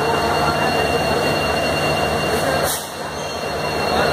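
Locomotive running steadily at close range, a continuous low hum under a broad noisy rumble, with a brief dip in level nearly three seconds in.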